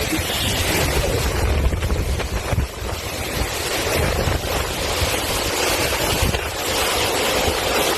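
Strong hurricane wind buffeting the microphone: a loud, continuous rushing noise with a heavy low rumble, gusting up and down.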